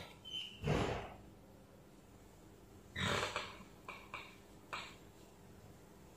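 Small metal parts of a cordless drill's planetary gearbox being handled, with a gear carrier lifted out of the housing and set down on paper. A few short clicks and rustles come near the start and again in a cluster past the middle.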